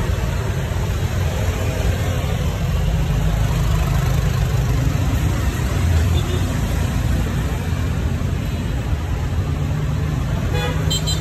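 Steady street-traffic rumble of passing road vehicles, with a horn toot near the end.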